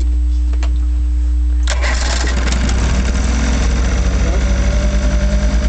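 A 1956 Johnson Javelin 30 HP electric-start two-cylinder two-stroke outboard starting up. After a steady hum, the engine catches suddenly less than two seconds in and runs with a rapid pulsing beat.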